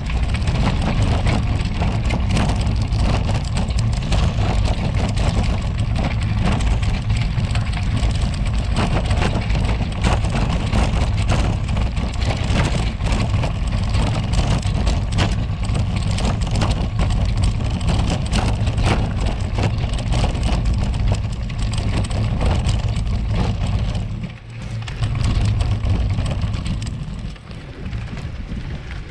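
Road bike and its camera mount rattling hard over cobblestones: a dense, continuous clatter over a low rumble. It eases briefly twice near the end.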